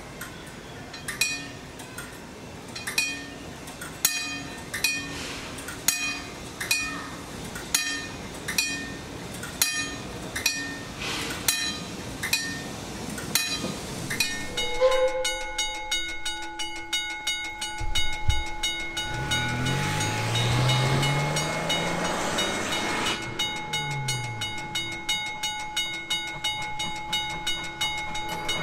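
A Magnetic Flagman wig-wag crossing signal's bell strikes slowly, about once a second. About halfway through it gives way to a McKenzie & Holland cast-iron teardrop level-crossing bell ringing rapidly and continuously, with a low hum rising and falling in pitch, likely a train going by, in the middle of the ringing.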